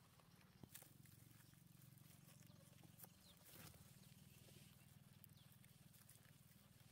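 Near silence: a faint, steady low hum with a few soft clicks.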